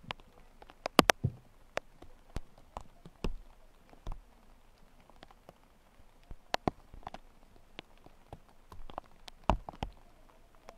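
Scattered light clicks and knocks at irregular intervals, the loudest a quick pair about a second in and another a little before the end.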